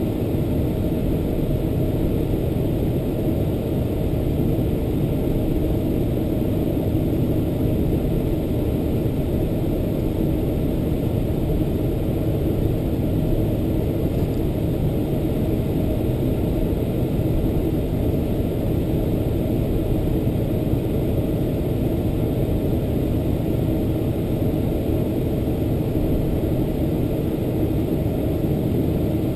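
Boeing 747-400's General Electric CF6-80C2 turbofan engines running at taxi power, heard inside the cabin as a steady low rumble.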